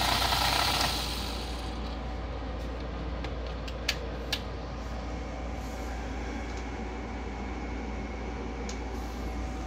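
Electric motor of a vintage Nikko Sea Wolf radio-control submarine running with a steady whir, cutting off about a second in. A few seconds later come two light clicks close together, from handling the plastic hull.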